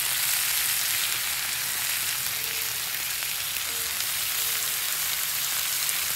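Melted butter and halved cherry tomatoes sizzling steadily on a hot flat-top griddle that has been switched off and is cooking on its retained heat.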